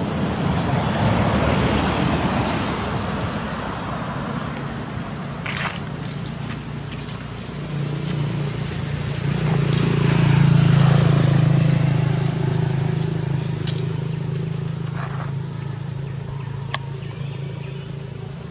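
A motor vehicle's engine passing by: a steady low hum that grows to its loudest about ten seconds in and then slowly fades, with a few sharp clicks along the way.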